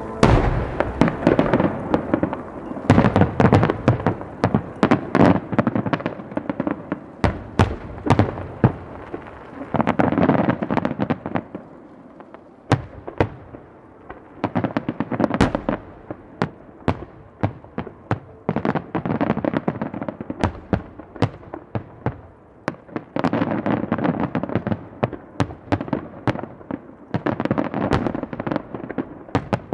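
Aerial firework shells bursting in a dense finale barrage: many sharp booms a second tumbling over one another above a continuous rumble, thinning out twice for a second or two.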